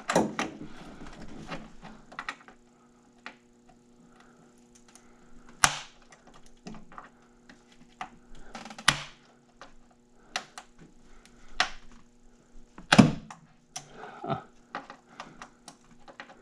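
Scattered clicks and knocks of hand work under a car's hood, with tools and plastic and metal engine parts being handled while hoses and clamps are worked loose from an intake manifold. The loudest knocks come about five, nine and thirteen seconds in, over a faint steady hum.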